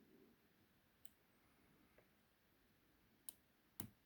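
Faint, sharp clicks from a lock pick working the pin tumblers of a 50 mm laminated padlock, the small clicks of pins setting under tension. There is one click about a second in, a fainter one at two seconds, and two more past three seconds, the last the loudest.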